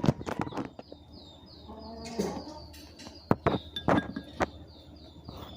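A handful of sharp clicks and knocks, with a bird chirping in quick, even repeats in the background and a short pitched call about two seconds in.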